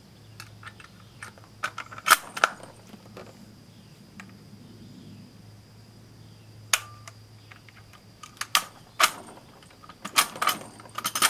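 Bolt action of an Italian Vetterli 1870/87/15 rifle being worked by hand: scattered sharp metallic clicks and clacks, with a cluster near the end. The loose, rough bolt is not ejecting the cartridge cleanly.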